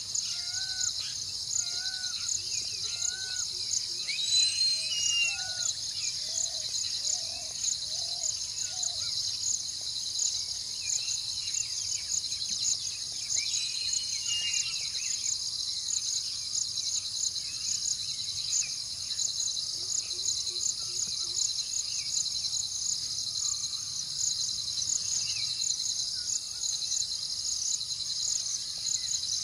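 A steady, high, pulsing chorus of insects shrilling, with scattered bird calls over it: a run of short repeated calls in roughly the first nine seconds and a few higher chirps about four and fourteen seconds in.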